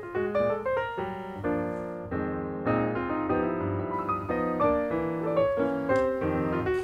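Background piano music, a melody of notes played one after another.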